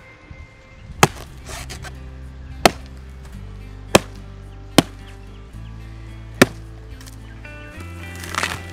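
Machete chopping into the soft, fibrous stem of a felled coconut palm: five sharp strikes spaced about a second apart, then a short rasping scrape near the end, over background music.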